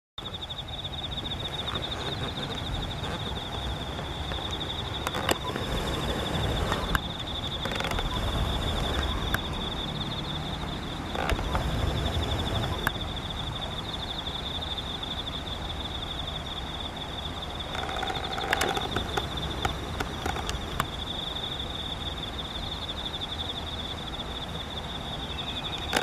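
Autumn insects trilling steadily at one high pitch, a continuous finely pulsing chirp, over a low background rush. A few sharp clicks stand out along the way.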